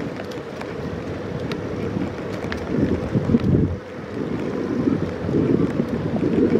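Wind buffeting the microphone of a moving bicycle: a gusty low rumble that swells and dips, with occasional faint ticks.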